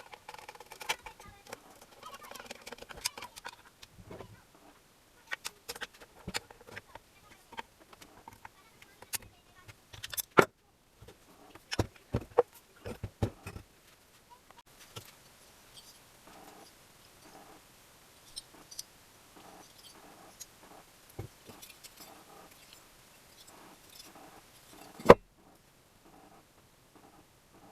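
Scattered sharp clicks and knocks of metal tools and small parts being handled, with one loud knock near the end.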